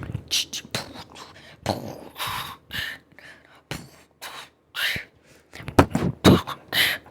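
A child making mouth sound effects: a string of short hissing and puffing bursts with clicks, uneven and broken by short pauses.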